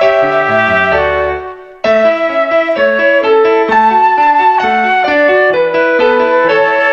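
Background music: a melody of distinct, stepped notes, with a falling run of low notes in the first second and a half, a brief break, then the tune starting again.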